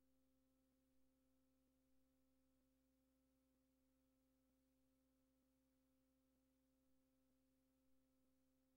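Near silence: the soundtrack drops out, leaving only a very faint steady hum.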